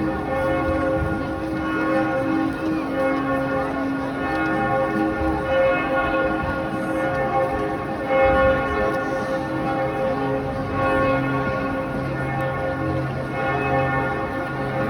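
Church bells of St. Stephen's Cathedral ringing together in a continuous peal, several bell tones overlapping and swelling as they strike.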